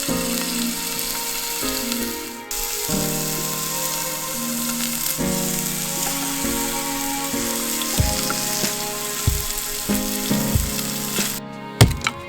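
Background music with a steady sizzling hiss over it; the hiss dips briefly a couple of seconds in and cuts off suddenly near the end.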